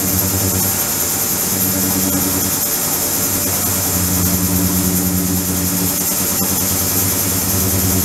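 Stainless-steel ultrasonic cleaning tank running in flow-through mode, its water circulated by a pump: a steady mechanical hum with a high hiss over it.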